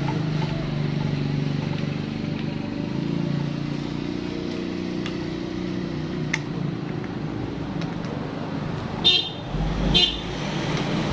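Yamaha Vixion's single-cylinder fuel-injected engine idling steadily, running again now that the ECU connector pin that had lost contact has been resoldered and its ignition restored. Near the end there are two short, loud bursts about a second apart.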